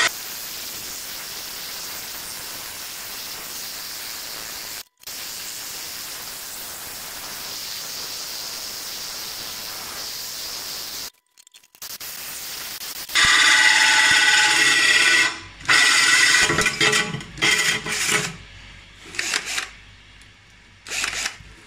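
Cordless drill with a diamond core bit grinding a hole through 6 mm glass under a trickle of cooling water: a steady gritty grinding hiss at low speed. About 13 seconds in the drill is run at higher speed, giving a louder motor whine, then a series of short on-off bursts as the cut is finished.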